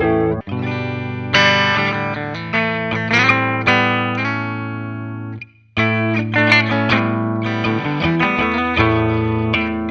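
Chibson Gold Top electric guitar played through an amplifier: chords struck over sustained low notes, with single notes picked between them. The playing cuts off suddenly about five and a half seconds in and picks up again a moment later.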